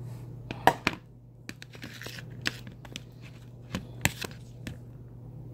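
A metal spoon scraping and knocking against a plastic bowl as dressed slaw is scraped out of it: a dozen or so sharp, irregular clicks and scrapes.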